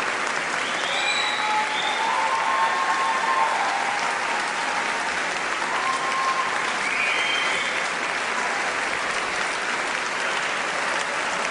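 Large concert audience applauding steadily, a dense even clapping that does not let up.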